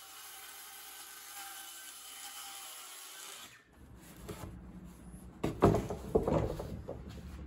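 Hands sweeping sawdust off a hardboard sheet and shifting the hardboard and OSB boards: rubbing and scraping, with a couple of sharp wooden knocks past the middle. It follows a faint steady hum that cuts off about halfway.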